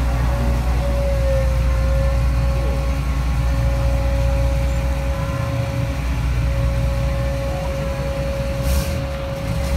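Heavy diesel engine of a tracked lifeboat launch tractor running steadily as it pushes the lifeboat on its carriage down the slipway, a steady high whine held over the low engine sound. A short hiss near the end.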